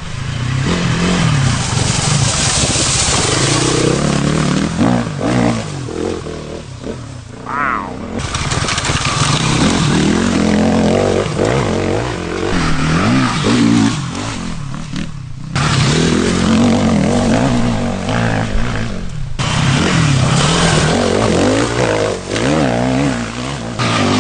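Sherco 450 SEF-R dirt bike's four-stroke single-cylinder engine being ridden hard, its revs rising and falling with the throttle and gear changes. The sound breaks off abruptly a few times.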